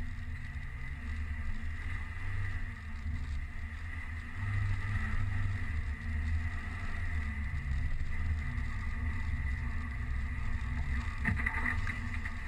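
Mercedes-Benz Viano 4Matic van driving on a snow-covered road, heard from a camera mounted on its side: a steady low rumble with a thin, steady high whine over it. A brief crackle comes near the end.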